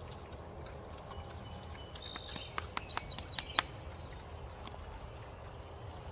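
Pigs feeding outdoors: a few sharp clicks and knocks about halfway through over a steady low rumble, with short high bird chirps.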